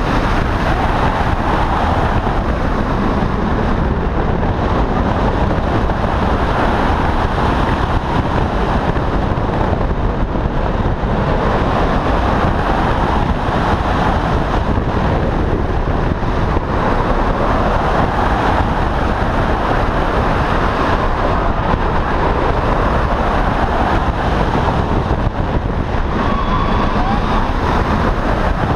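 Steady loud wind rushing over the microphone of a camera riding on a moving steel wing roller coaster train, mixed with the train's running noise on the track.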